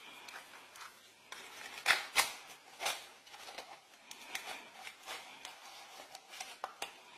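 Band-type piston ring compressor being handled and fitted around a piston: light metallic rustling and scraping with a few sharp clicks, the loudest about two and three seconds in.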